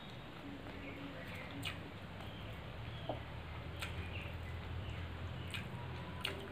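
Fingers mixing rice and fish curry on a steel plate while eating by hand: soft wet squishing with four sharp clicks of fingers against the metal plate, over a low steady hum.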